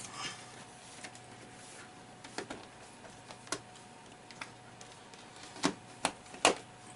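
Cables being handled and routed by hand: scattered sharp clicks and knocks, with three louder ones in quick succession near the end.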